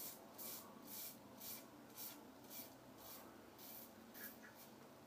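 Gillette Psycho Tech double-edge safety razor with a Derby Extra blade scraping through lathered stubble in short strokes, about two a second, faint.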